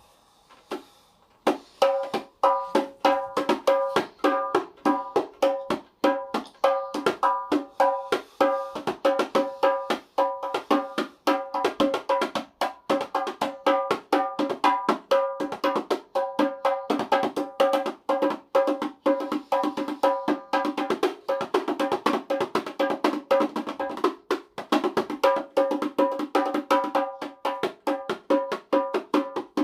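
Dikir barat rebana drums with pauh-wood shells, struck by hand in a fast, continuous rhythm that starts about a second and a half in, each stroke ringing with a clear pitched tone.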